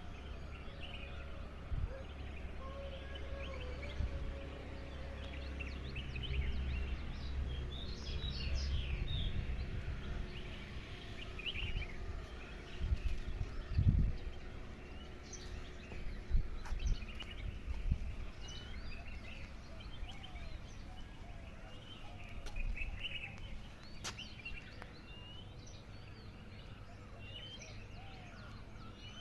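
Many birds chirping and singing in an early-morning hillside dawn chorus, with faint distant music from the neighbourhood in the first third. A single dull thump stands out about halfway through.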